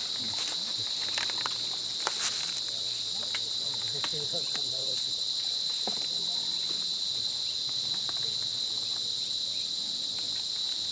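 Steady, high-pitched chorus of forest insects, with a few light clicks and rustles from close handling.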